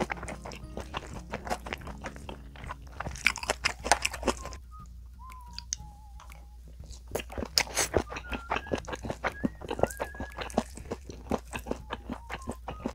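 Close-miked chewing and crunching of a mouthful of mixed lunchbox rice with stir-fried anchovies, kimchi, beans and egg, with light clicks of a wooden spoon in the metal tin.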